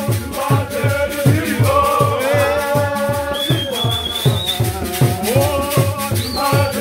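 Group singing of a church song over a steady low drum beat, about three beats a second, with shaken rattles. A high whistle sounds for about a second midway.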